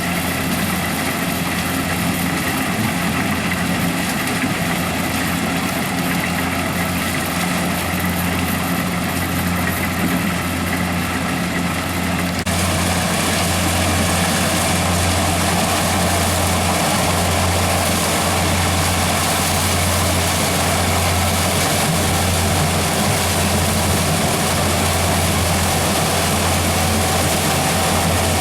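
Corn harvester running: a steady engine hum with a broad rushing mechanical noise over it, which steps up louder about twelve seconds in.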